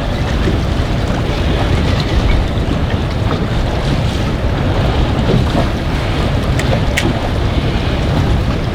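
Strong wind buffeting the microphone, with waves on choppy water around a small boat. A couple of sharp clicks come about seven seconds in.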